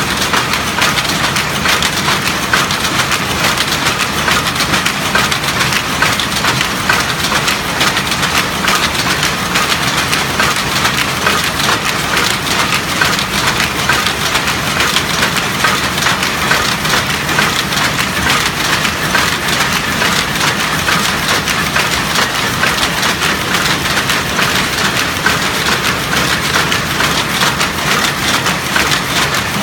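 A 1930 power weaving loom running, a loud, continuous clatter of rapid clicks and knocks over a steady low hum.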